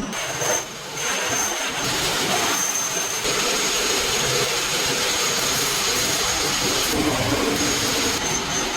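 Steady machinery noise in a metalworking shop, a loud even rush with a thin, high steady whine over it, dipping briefly about a second in.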